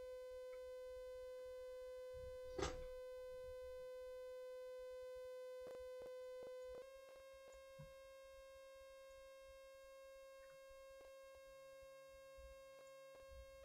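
Arturia ARP 2600 synthesizer holding one faint, steady, buzzy tone. Its tone colour changes about seven seconds in, and a lower tone joins near the end. A sharp click about two and a half seconds in is the loudest sound, and a few fainter clicks follow.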